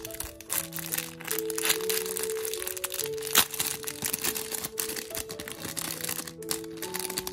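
Clear plastic refill bags crinkling as they are handled, over background music of held notes, with one sharp crackle about three and a half seconds in.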